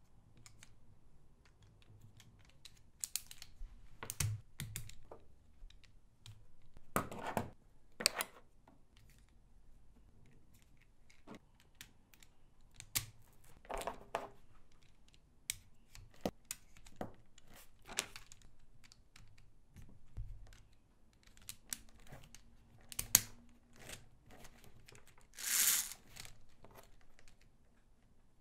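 LEGO Technic plastic parts handled and pressed together: scattered clicks and rattles as gears, beams and pins are fitted, with a few short scrapes.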